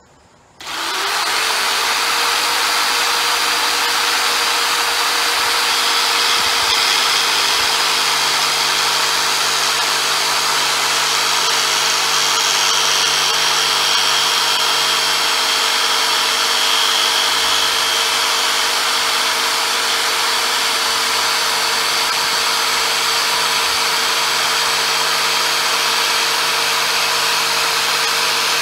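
Corded jigsaw with a scroll blade starting up about half a second in, its pitch rising quickly, then running steadily as it cuts through half-inch MDF.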